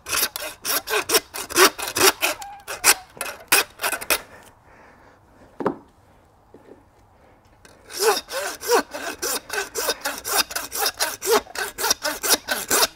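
Hand bone saw cutting through a lamb's leg bone to take the knuckle off, in quick back-and-forth rasping strokes. The sawing stops for about four seconds in the middle, broken by a single knock, then starts again.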